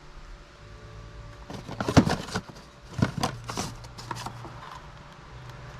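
Clatter from working on a car in a shop: a handful of sharp knocks and clanks, the loudest about two seconds in and more around three seconds, over a steady low hum.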